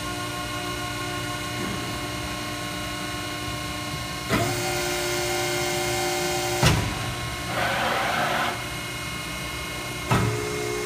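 Cincinnati 135 CB hydraulic CNC press brake running, its hydraulic system humming steadily. About four seconds in the sound surges as the machine cycles, with a sharp knock a little later, a brief hiss, and another surge near the end.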